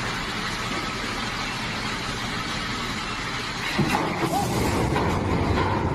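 A motor vehicle running: a steady noisy drone with a low engine hum, louder and busier from about four seconds in.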